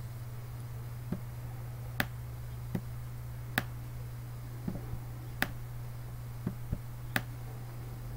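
Computer mouse button clicking about ten times, irregularly, as signature strokes are drawn by pressing, dragging and releasing, over a steady low electrical hum.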